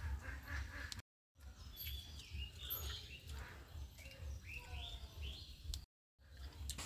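Birds chirping over a low pulsing hum, with soft clicks of hands mixing rice. The sound drops out completely twice for a moment.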